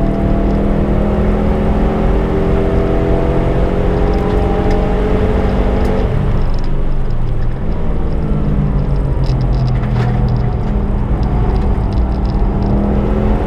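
Subaru Impreza's turbocharged flat-four engine under hard acceleration, its note rising steadily for about six seconds. The pitch then drops away as the throttle is lifted, holds at lower revs for a few seconds, and starts climbing again near the end.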